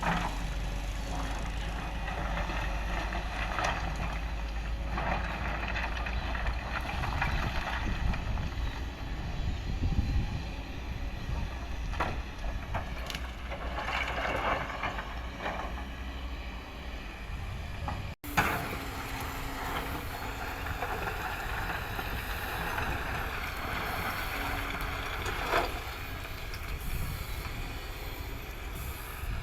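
Kobelco excavator at work: its diesel engine runs steadily with a low rumble, with scattered knocks and scrapes. The sound breaks off abruptly about 18 seconds in, then carries on.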